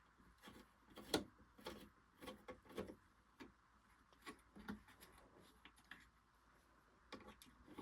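Faint, irregular clicks and taps of a screwdriver and small screws being worked out of a Singer Genie sewing machine's body, with the odd knock from handling the machine; the loudest tap comes about a second in.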